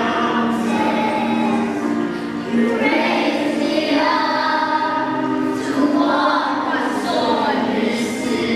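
Children's choir singing a song together, holding long notes that change every second or so.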